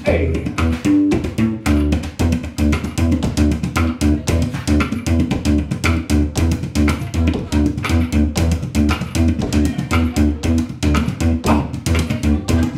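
Upright double bass playing a driving blues-rock bass line, with a steady, rapid run of sharp percussive clicks.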